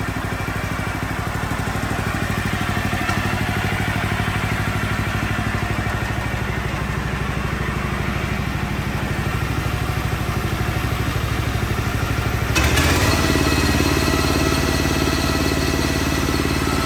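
Harbor Freight Predator 459cc engine idling steadily in a golf cart after being started. About three-quarters of the way through it abruptly gets louder and runs faster.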